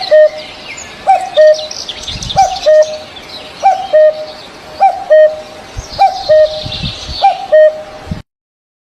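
Birds calling: a low call repeated seven times, about once every 1.2 seconds, over a layer of higher, quicker chirping. The sound cuts off abruptly shortly before the end.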